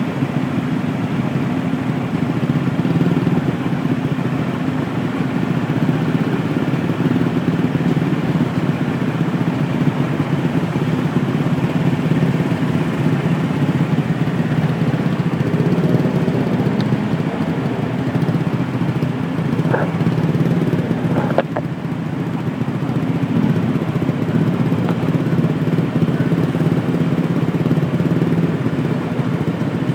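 Motorbike engines idling in stopped traffic, a steady low hum.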